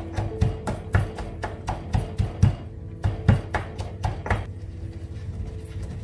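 Steel pestle pounding garlic, pepper and chilli flakes in a stone mortar, about four sharp strikes a second with a short pause near the middle, stopping about four and a half seconds in. Background music with steady held notes plays under it.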